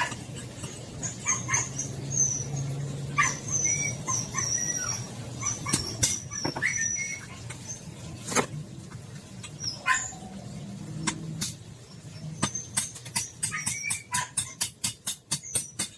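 Metal hammer blows driving a worn door-hinge pin out of its hinge, a few scattered strikes and then a quick run of about four or five blows a second near the end as the pin comes free. Short high chirps and animal sounds are heard in the background.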